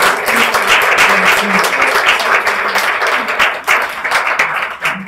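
Audience applauding, a dense run of clapping that thins out near the end.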